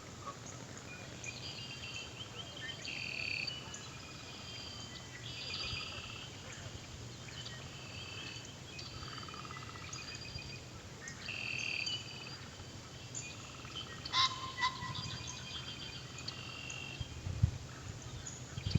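Several birds singing and calling at once in a dawn chorus: overlapping short chirps and trills, with one louder call about two-thirds of the way through. A faint steady low rumble runs underneath.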